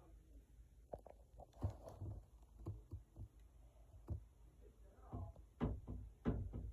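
A quiet small room with a series of soft, short knocks and taps, a second or so apart and coming closer together near the end, and a faint voice about five seconds in.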